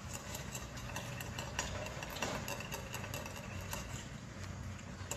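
A steady low hum of a running motor, with scattered light clicks and taps on top.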